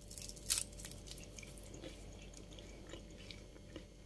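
Crisp, syrup-soaked twisted fried dough pastry crunching as gloved hands break it apart: one loud crack about half a second in, then lighter scattered crackles.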